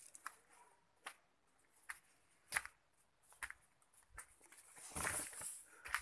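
Footsteps on dirt and leaf litter, a soft knock roughly every 0.8 s, with the loudest about two and a half seconds in. A brief rustle follows about five seconds in.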